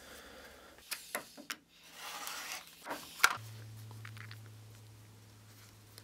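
Leather being handled and rubbed around a metal lever bar: rustling and creasing with a few sharp clicks and taps, the loudest about three seconds in. A faint low steady hum comes in shortly after.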